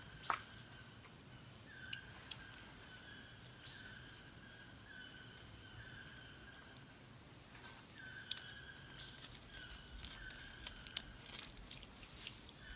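Forest sounds: a steady high insect drone, with a short call repeating about every second and a half, and scattered sharp snaps and clicks. The sharpest comes about a third of a second in, and a cluster follows near the end.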